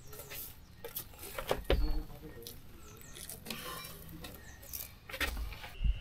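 Scattered light knocks and taps from footsteps and a trekking pole on wooden deck boards.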